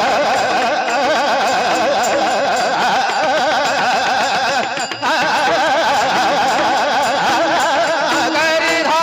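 Indian-style instrumental music: a wavering melody with heavy vibrato over a steady drone, with a brief break about five seconds in.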